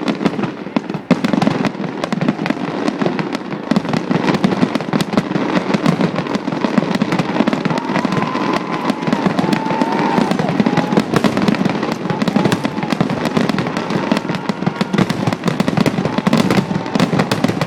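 Fireworks finale: a continuous, rapid barrage of shells bursting and crackling, the bangs so close together that they run into one steady loud rumble.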